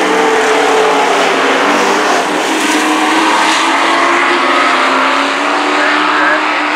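Several dirt-track stock race trucks' engines running together as the pack laps the oval, a loud steady drone whose pitch drifts only slightly.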